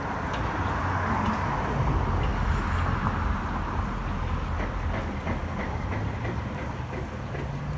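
Steady low rumble of city traffic, swelling over the first few seconds, with faint footsteps on brick paving in the second half.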